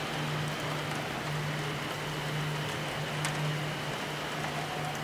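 Steady rain falling, with a low steady hum underneath and a single faint click about three seconds in.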